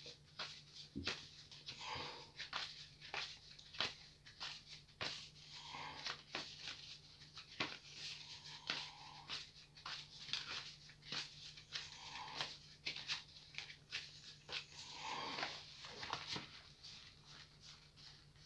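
A deck of tarot cards being shuffled by hand: a faint, irregular run of soft flicks and taps as the cards slide and knock together. Near the end the cards are spread out across a cloth.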